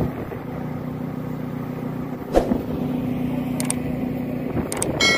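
An engine running steadily with a low hum, with one knock about two and a half seconds in and a few short clicks near the end.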